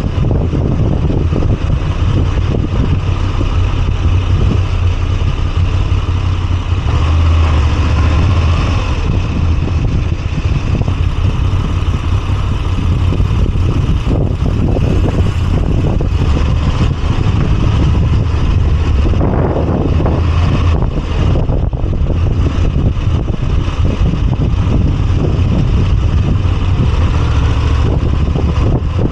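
Moto Guzzi V85TT's air-cooled transverse V-twin engine running steadily while the motorcycle is ridden.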